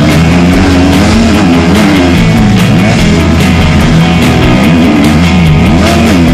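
Rock music with a steady beat, mixed over a motocross bike's engine whose pitch rises and falls again and again as the rider works the throttle and gears.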